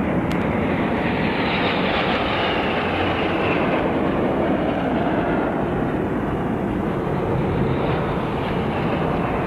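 A formation of military jet aircraft (bombers, attack aircraft and fighters) flying over: a steady, loud jet roar that swells a little in its upper range in the first few seconds.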